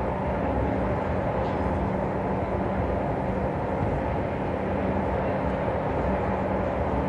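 Electric passenger train running with a steady rumble and a constant low hum.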